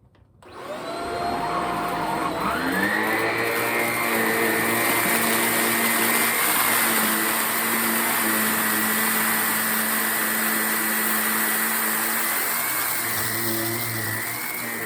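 Shark Rocket stick vacuum switched on: its motor spins up over about two seconds, rising in pitch, then runs steadily with a high whine while vacuuming carpet.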